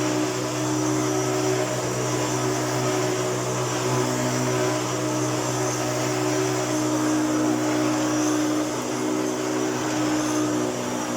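Hoover Turbopower U2806 upright vacuum cleaner running steadily with a constant motor hum.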